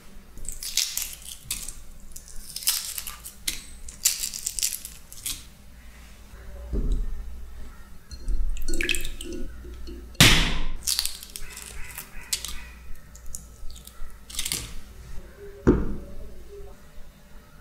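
Shells of hard-boiled eggs crackling and crunching as they are cracked and peeled by hand, in irregular bursts with a sharper crack a little after ten seconds. Now and then water sloshes as an egg is dipped in a bowl of water.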